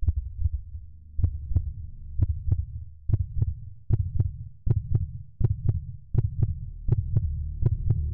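Heartbeat-like sound effect: paired knocks, repeating a little under once a second and quickening slightly, over a low throbbing drone.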